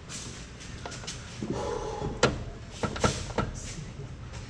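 Sharp metallic knocks and clicks, with a short creak just before them, as the Cadillac Northstar engine is moved into place on its hoist.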